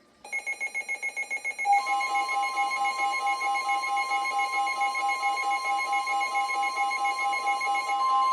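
NOAA Weather Radio alert: rapid electronic beeping for about a second and a half, then a loud steady high tone (the 1050 Hz weather radio warning alarm) with a pulsing beep over it, signalling that a new warning, here a tornado warning, is about to be read.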